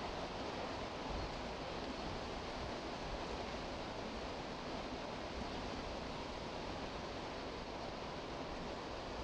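Steady rainfall, an even hiss with no breaks or thunder claps.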